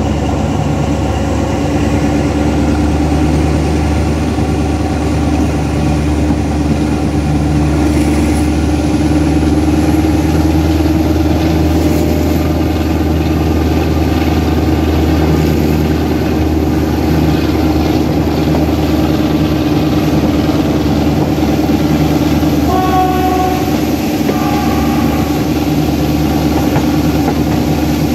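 Alsthom diesel-electric locomotive no. 4218 working hard under acceleration, its engine giving a loud, steady drone heard from the cab side. A high whine climbs in pitch about a third of the way through.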